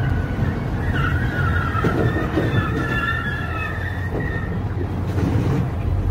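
Low, steady rumble of a semi truck and slow traffic, with a high squeal that wavers in pitch and fades out about four seconds in.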